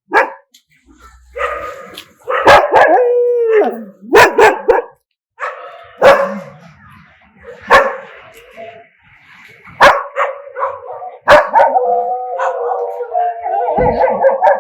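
Dogs barking in sharp, separate barks, with long drawn-out howls between them. One howl slides down in pitch about four seconds in, and another runs on through the last few seconds.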